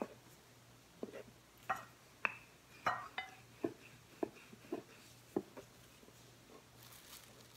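Wooden rolling pin rolling dough on a plastic cutting board: a series of light knocks and clicks, about one every half second, that stop about five and a half seconds in.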